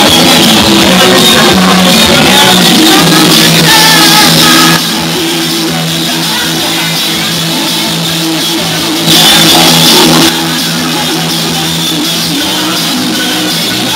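Loud music from a DJ's set played over a bar's speakers, with its loudness dropping about five seconds in and rising again briefly around ten seconds.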